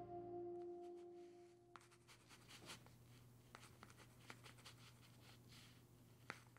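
Soft ambient music fading out over the first couple of seconds, then faint scratching with light irregular ticks of pen and paper on a desk, with one sharper tick near the end.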